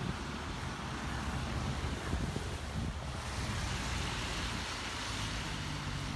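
Steady outdoor noise: a low rumble of road traffic with wind blowing on the microphone.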